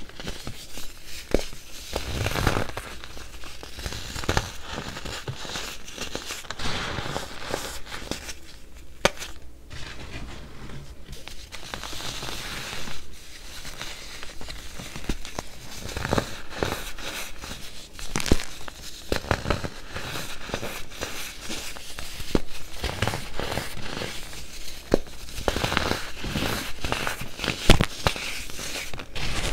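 Dry, molded baking soda being crushed and crumbled by hand: an uneven run of crunching and crackling with sharp snaps. It thins out for a couple of seconds about a third of the way in.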